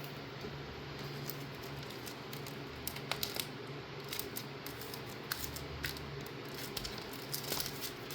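Scattered light clicks and rustles of small packing materials being handled by hand, such as stickers and card going into a small bag, over a steady low hum.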